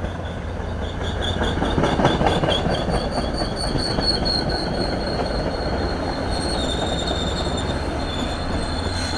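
MBTA commuter train cars rolling past with a steady rumble and clack, steel wheels squealing in thin, high steady tones.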